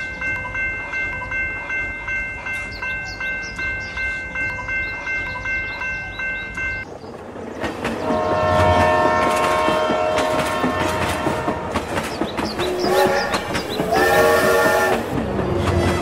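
Level-crossing warning bell ringing in quick even pulses, about two or three a second, for roughly seven seconds. It then stops and a train runs past with rumbling, clicking wheels, its horn sounding twice, loudest near the end.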